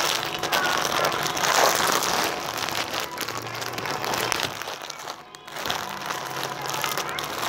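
Thin plastic packaging bags crinkling and rustling as wrapped clothing packages are handled and turned over, with a brief lull about five seconds in.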